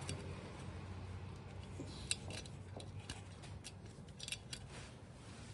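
Small metallic clicks and scrapes as a motorcycle cylinder block is worked down over the piston and rings, with the cam chain passing through it. The clicks come scattered and light, bunching about two seconds in and again around four seconds, over a low steady hum.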